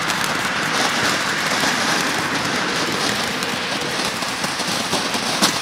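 Multi-nozzle ground firework fountain spraying sparks with a steady rushing hiss and fine crackle. A single sharper crack comes near the end.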